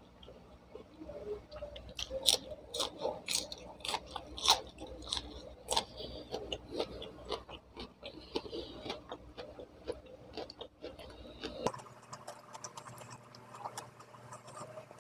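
Close-up chewing and mouth sounds of a person eating: a run of irregular clicks and smacks, busiest from about two to eleven seconds in.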